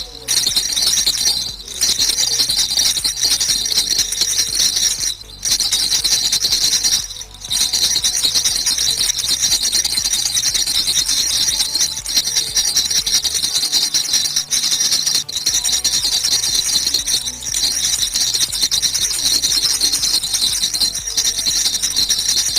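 A baby rattle shaken fast and without let-up, a dense, even rattle with three brief pauses in the first eight seconds.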